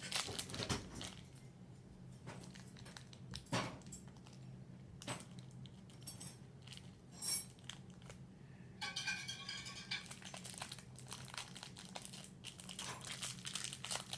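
Slime and clay being kneaded and stretched by hand: sticky, irregular crackling and popping.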